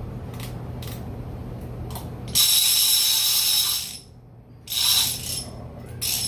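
Purple two-speed conventional fishing reel turned by hand, its ratchet clicking a few times lightly and then buzzing loudly from about two and a half seconds in. The buzz stops just before four seconds and starts again about a second later.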